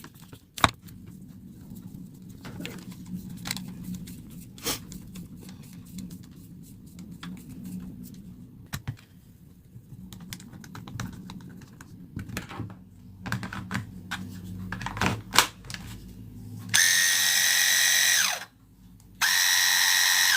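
Small clicks and knocks of the clipper parts and screwdriver being handled, then a Heiniger Saphir cordless clipper switched on twice, each time running with a loud, steady buzz for under two seconds; the first run winds down in pitch as it stops.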